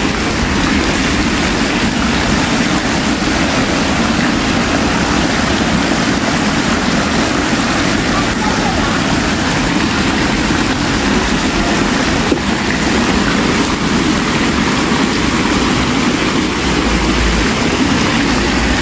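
A loud, steady rushing noise with no breaks, and a single short knock about twelve seconds in.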